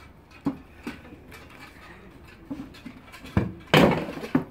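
Gladiator sparring: scattered sharp knocks of spear, sword and shields striking, with the loudest clash about three and a half seconds in.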